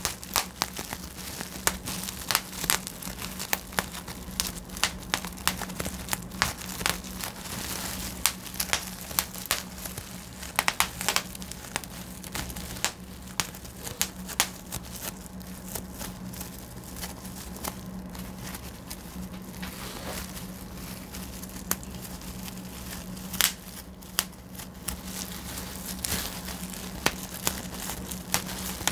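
Plastic bubble wrap bubbles popped one by one between the fingers: sharp, irregular pops, with the plastic sheet crinkling as it is handled. The pops come less often through the middle stretch. A steady low hum runs underneath.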